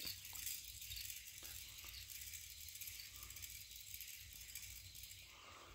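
Canarm Twister ceiling fan coasting down after being switched off, turning with a faint hiss while its loose pull chains rattle and tick against the housing, a few light clicks in the first two seconds.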